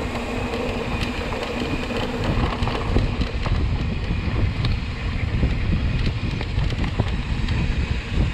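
Wind buffeting the microphone as a mountain bike rolls fast over a rocky dirt trail, with scattered knocks and rattles from the tyres and bike over the rocks.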